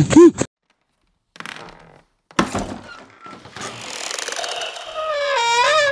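A short cry cut off at the start. After a gap of silence come some scraping sounds, then a long creak from a wooden door hinge, rising in from about three and a half seconds in, its pitch wavering and dropping near the end.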